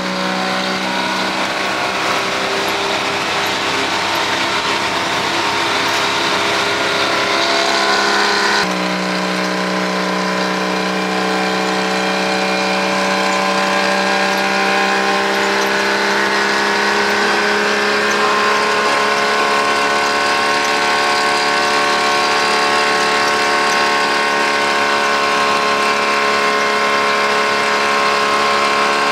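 Old diesel truck's engine pulling on the road, heard from inside the cab. Its pitch climbs, drops suddenly about nine seconds in as the driver shifts up a gear, then slowly rises again.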